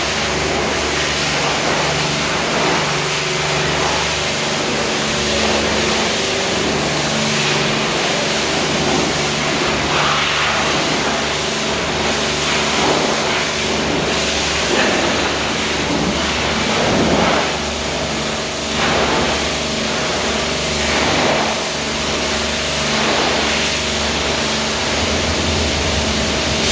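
Touchless automatic car wash machine running: water jets spraying steadily over a continuous mechanical hum, with a few louder swells.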